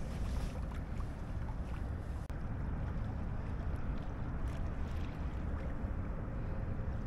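Steady wind rushing over the microphone, with water washing along the hull of a small junk-rigged sailboat under way.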